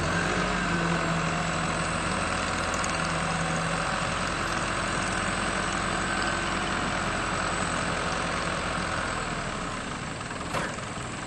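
Tip truck engine running steadily while its hydraulic system raises the tilt-tip tray to the tipping position, with a steady higher whine over the engine. A single short knock comes near the end.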